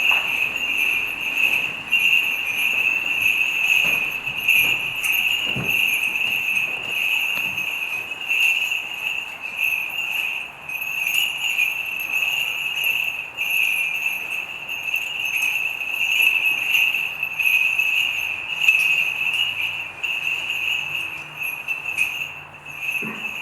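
Small bells on a swinging censer jingling continuously, the jingle swelling and falling with each swing.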